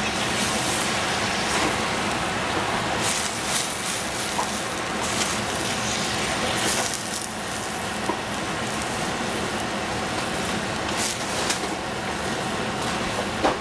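Cabbage cooking in a stainless steel pan over a gas flame with a steady hiss. A wooden spatula stirs it, scraping and knocking against the pan now and then.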